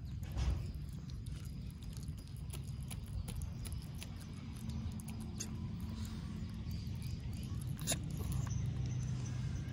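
A baby otter eating raw catfish: chewing and smacking, with a few short sharp clicks, the clearest about half a second in and near the end, over a steady low background rumble.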